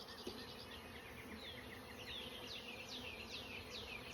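Honeybees buzzing around an open hive: a steady hum. Above it, from about halfway in, comes a run of high, quickly falling chirps.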